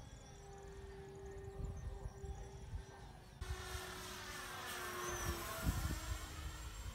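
Twin electric motors and propellers of a radio-controlled FlightLine P-38 Lightning model whining in flight. It grows louder as the plane passes, and the pitch drops slightly about five and a half seconds in, with wind buffeting the microphone.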